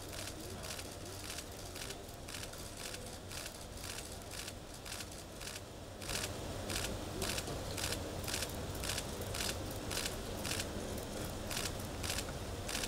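Camera shutters clicking rapidly and irregularly, several a second, from press photographers covering the handshakes, over a low background rumble; the clicking grows louder about halfway through.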